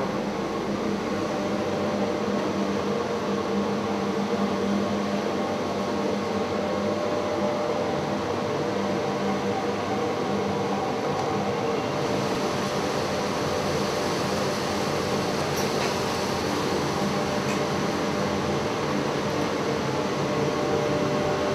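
Steady hum of screen-printing workshop machinery, carrying several steady tones, with a little more hiss from about halfway through.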